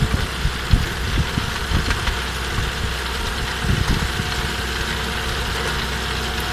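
Tractor engine running steadily while driving an inter-row rotavator through the soil between crop rows, with a few irregular low thumps.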